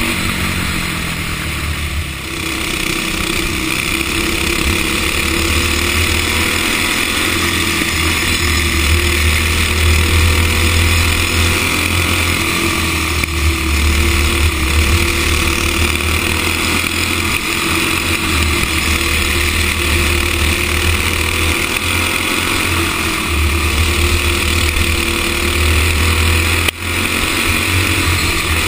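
Racing go-kart engine heard from onboard at speed, its pitch dropping over the first couple of seconds as it slows, then running hard and steady with small rises and falls through the corners. A brief dropout comes near the end.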